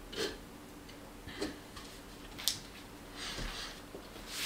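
A few light, scattered clicks and knocks of kitchen things being handled, with quiet between them.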